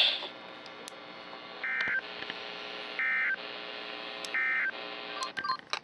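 Three short bursts of Emergency Alert System digital data, the warbling two-tone SAME code sent as end-of-message (EOM) bursts, about 1.3 s apart over a faint steady hum. A few short beeps follow near the end.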